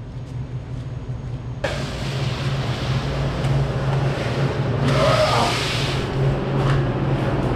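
Walk-in cooler's ceiling refrigeration unit running: a steady low hum under a constant rushing fan noise that comes in abruptly about a second and a half in, with a brief louder rush about five seconds in.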